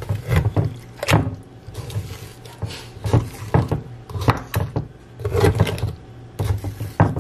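A serrated knife jabbed again and again into a raw whole chicken sitting in a glass baking dish: a run of irregular dull thumps and knocks, about two a second.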